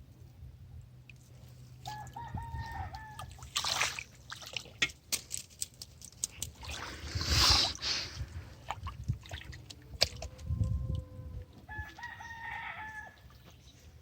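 A rooster crowing twice, about ten seconds apart, each crow lasting just over a second. Between the crows there is a brief rushing noise, the loudest sound here, along with scattered small clicks.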